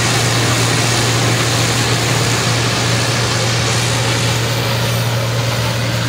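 Combine harvester running steadily while harvesting maize: a loud, even engine hum mixed with the noise of its cutting and threshing machinery.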